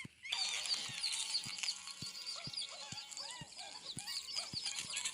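Many overlapping high chirping animal calls, starting suddenly just after the start, with a soft tick about twice a second underneath.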